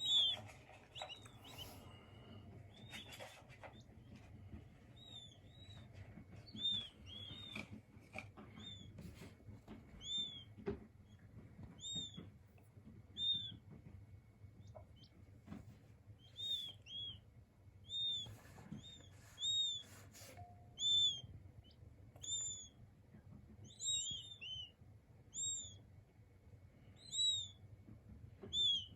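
King quail chicks peeping: short, high chirps that rise and fall in pitch, repeated irregularly about once a second, with a few faint taps or rustles among them.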